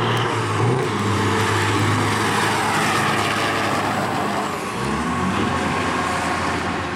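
Two semi trucks' diesel engines at full throttle in a drag race, the engine note breaking and climbing again several times as they shift gears.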